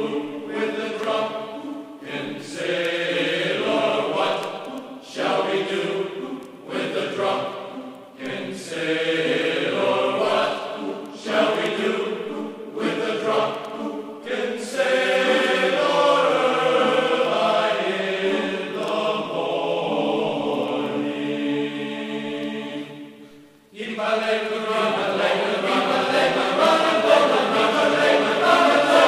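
A song chanted by voices together in chorus, briefly dropping out about three-quarters of the way through.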